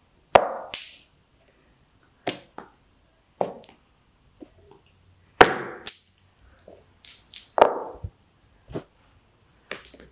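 Small stones clacking against each other and against the floor in the five-stones game (беш таш), as a stone is tossed up and the others are snatched from the carpet and caught in the hand. About a dozen sharp, irregular clacks, one or two at a time.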